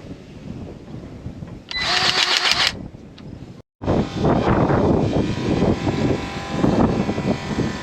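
A loud hiss of about a second, then, after an abrupt cut, an engine running steadily with wind buffeting the microphone.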